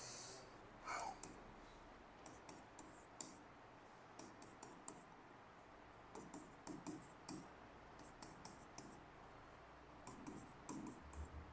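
Faint writing sounds: a pen scratching in short, scattered strokes.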